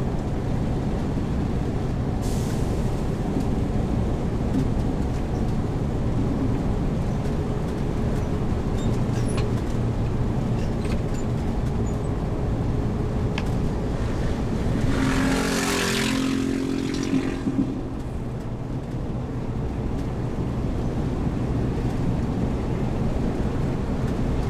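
Heavy-goods-vehicle camping-car's engine running steadily. About two-thirds of the way in comes a louder hiss lasting about two seconds, typical of an air-brake release.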